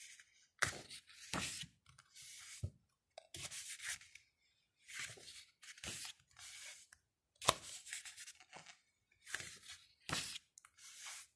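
Pages of a small paper photo book being turned by hand, one after another: about a dozen short rustles and flicks of paper sliding over paper and fingers.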